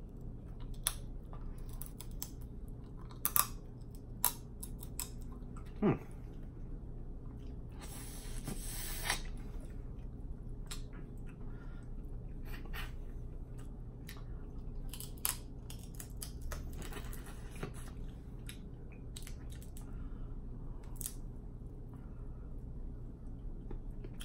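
Snow crab leg shells being cracked, snapped and picked apart by hand and teeth, with scattered sharp cracks and crunches and some chewing. The loudest cracks come a few seconds in.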